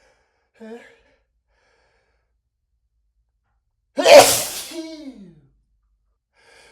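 A man's single loud, cartoonish sneeze about four seconds in: a sudden burst that trails off into a voiced tone falling in pitch. It is one of a run of repeated sneezes in a sneezing fit, and a faint short vocal sound comes just under a second in.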